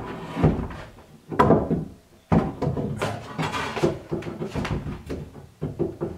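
Knocks and clunks of a heavy rough-sawn wooden barn door and its iron strap hangers as it is lifted and its rollers are set onto an overhead sliding-door rail. A few heavy clunks in the first two and a half seconds, then a run of smaller knocks and rattles.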